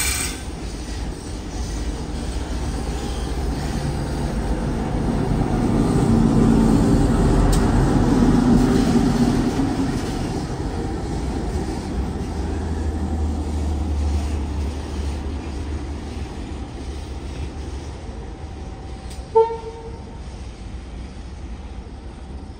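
Diesel freight locomotive going past, its engine rumble building to a peak and then fading as it moves away, with a brief horn toot near the end.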